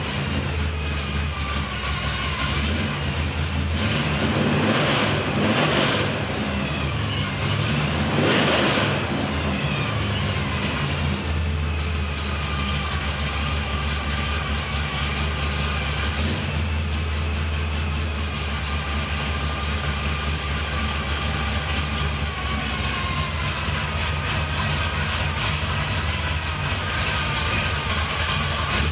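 Chevrolet V8 in a 1971 Chevelle running on a newly fitted Edelbrock carburetor and Performer intake, idling steadily while its idle mixture is tuned for best vacuum. There are brief revs of the throttle about four to six seconds in and again around eight seconds.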